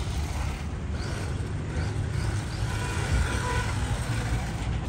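Small battery-powered toy RC car driving on concrete, its electric motor giving a faint whine about three seconds in, over a steady low rumble of street noise.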